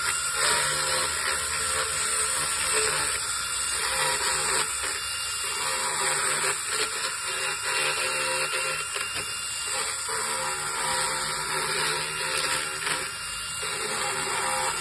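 Battery-powered equine dental float built on a DeWalt drill body, running steadily as it grinds down a horse's teeth: a continuous whirring rasp with no breaks.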